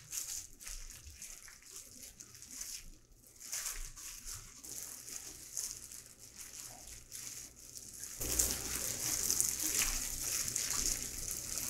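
Gloved hands rubbing and folding salted napa cabbage leaves in red pepper kimchi paste, the wet leaves rustling and squishing irregularly; the sound gets louder about eight seconds in.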